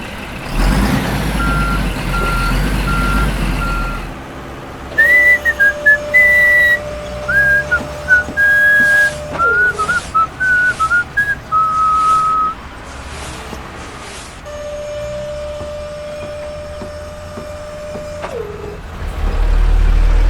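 Cartoon sound effects of a truck: a low engine rumble with a string of short reversing beeps during the first few seconds. Then a whistled tune of gliding notes over a long held tone, which comes back once more later. The low engine rumble returns near the end.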